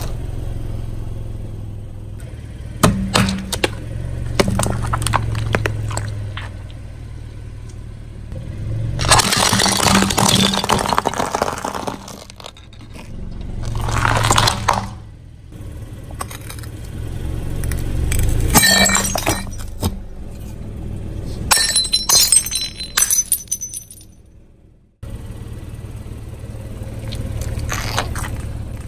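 A car tyre rolling slowly over objects and crushing them, in several separate takes: small fruit and balls on a plastic plate, then vegetables, then rubber toys. Crackles, snaps and crunching bursts sound over the car's low engine hum. The sound cuts off abruptly about 24 seconds in, where one take ends.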